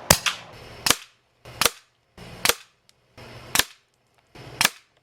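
Umarex Notos PCP air rifle firing .22 pellets: six sharp shots in quick succession, about a second apart.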